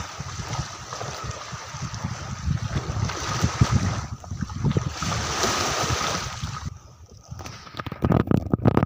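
Sea waves washing on a beach, with wind buffeting the microphone as a low rumble. The wash drops away about seven seconds in, followed by a few sharp gusts on the microphone near the end.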